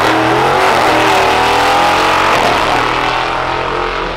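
V8 drag cars at full throttle accelerating hard off the start line, their engine note climbing in pitch with a break about two and a half seconds in, like a gear change, then fading slightly as they pull away down the strip.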